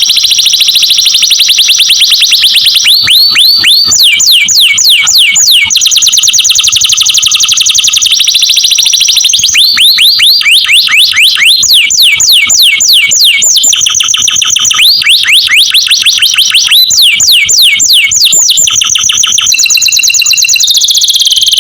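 Canary singing a long, loud, high-pitched song of rapid trills, broken up by runs of quick downward-sweeping notes repeated several times a second.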